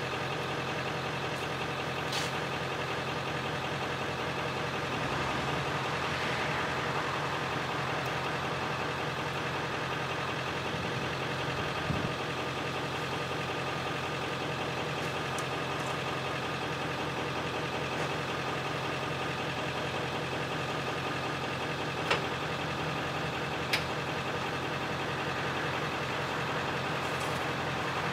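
Unimog 406 diesel engine idling steadily. A few sharp clicks sound over it, the loudest two about two seconds apart near the end.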